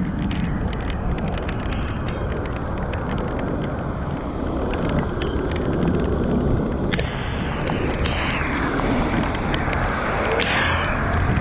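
Wind rushing over the microphone and wet-road hiss from an electric scooter riding through heavy rain, with scattered sharp ticks of raindrops striking the camera.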